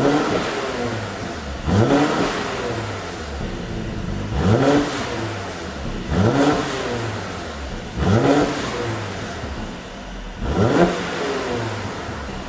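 2019 Mercedes-AMG C43's twin-turbo V6 revved in six short, sharp blips, about one every two seconds, dropping back to idle between them. The car carries an exhaust tune set up for pops on the overrun.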